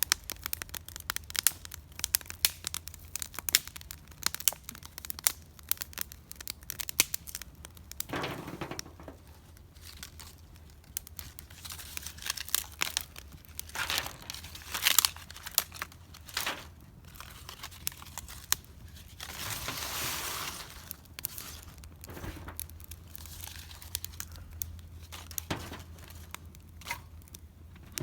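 Small fire of dry leaves and sticks crackling and popping in many sharp, irregular snaps, with a longer rush of noise about twenty seconds in.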